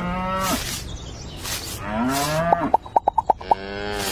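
Several drawn-out animal calls, one after another, with a quick run of about eight sharp clicks about three seconds in.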